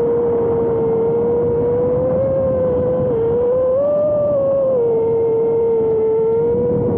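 Motors and propellers of an iFlight F5X V2 five-inch FPV quadcopter on 6S, whining steadily at cruising throttle as heard from the onboard camera. The pitch dips briefly about three seconds in, then rises for about a second before settling back.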